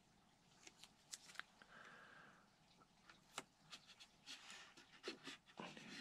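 Faint workbench handling sounds: scattered light clicks and rustling as hands position a model airplane's cowl and press tape onto it.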